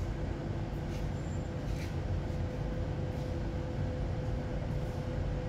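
Steady low rumble of background machinery with a faint steady hum, a few faint clicks over it.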